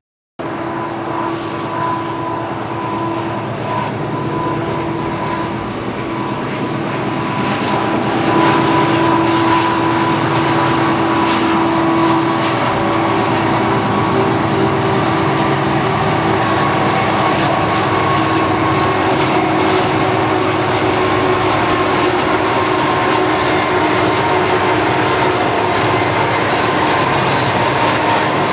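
Burlington Northern diesel freight locomotives running with a steady drone and a couple of constant tones in it, growing louder over the first eight seconds or so as the train approaches, then holding level.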